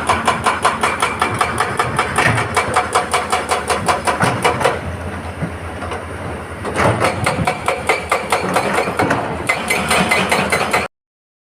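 Excavator-mounted hydraulic rock breaker hammering rock in rapid, even blows over the running diesel engine. The hammering stops for about two seconds midway, resumes, and the sound cuts off suddenly near the end.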